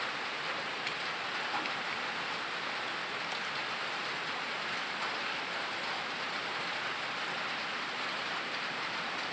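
Steady, even hiss of background noise, with a few faint clicks near the start as plastic toy pieces are handled.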